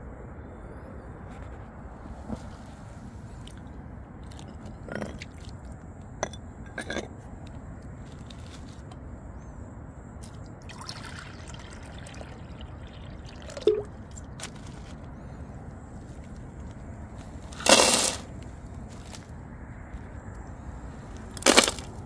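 Light clicks and knocks of plastic containers being handled and set down on rock, over a faint steady outdoor background. Two louder, brief handling noises come about three-quarters of the way through and again near the end.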